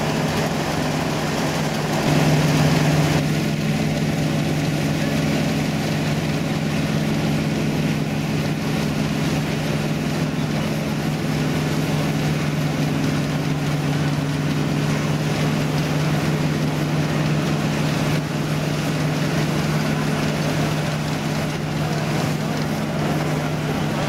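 Vintage combine harvester running steadily in the field, a constant engine drone holding one low pitch.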